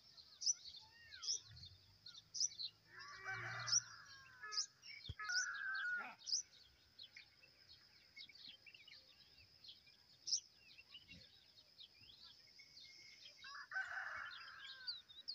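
Black francolin giving short, harsh calls: one about three seconds in, a shorter one a couple of seconds later, and another near the end. Behind them runs the constant thin, high chirping of small birds and insects.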